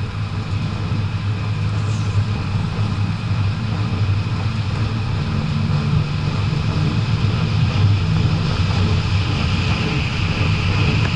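BMW 535d's twin-turbo straight-six diesel engine running steadily under way, heard from inside the car over a hiss of tyre and wet-road noise; the sound grows gradually louder, the hiss most of all near the end.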